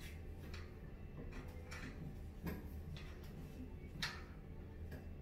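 A handful of irregular light clicks and knocks from a DSLR being fitted onto a Joby GorillaPod's plastic ball-jointed legs, the sharpest about four seconds in, over a steady low hum.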